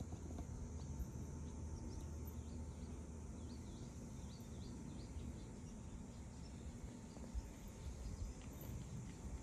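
Outdoor ambience: small birds chirping in many short, high, falling notes over a low steady rumble.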